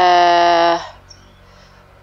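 A woman's drawn-out hesitation sound, a steady-pitched "ehh" held for about a second while she tries to recall a name, then only faint background hum.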